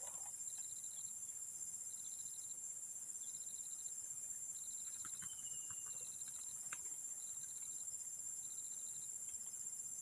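Insects chirring: a steady high-pitched drone, with short pulsed chirps repeating about once a second. A brief falling whistle comes about five seconds in.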